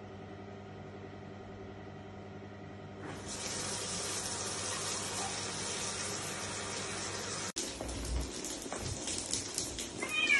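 A bathroom sink's mixer tap is turned on by a cat and water starts running into the basin about three seconds in, with a steady low hum before it. After a sudden break, rushing water with low thuds is heard, and a cat meows once at the very end.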